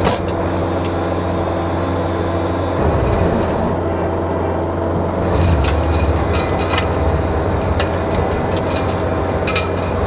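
Diesel engine of a John Deere 333G compact track loader running steadily under load while its Reist Rotorake power rake churns through topsoil. The engine note shifts about three seconds in and again a couple of seconds later, and scattered sharp clicks come through over the second half.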